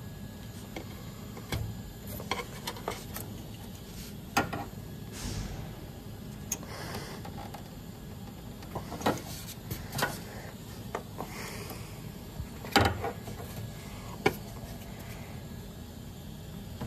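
Scattered sharp clicks and knocks of hand work on a fuel line: a greased quick-connect fitting is worked into nylon fuel line held in a flare-line tool, with the strongest knock about 13 seconds in. A low steady hum runs underneath.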